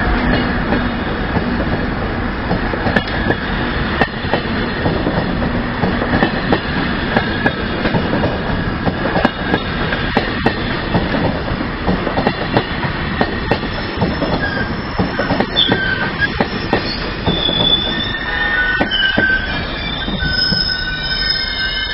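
A narrow-gauge MGB train running on the track, with sharp wheel clicks over the rails throughout. About halfway in, high wheel squeals begin and grow stronger and more frequent near the end.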